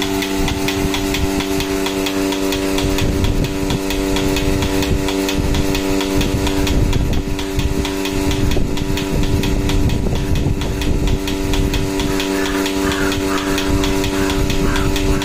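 Portable milking machine's electric vacuum pump running steadily with a constant hum and a regular ticking, its teat cups on a cow's udder, so the machine is under vacuum and milking.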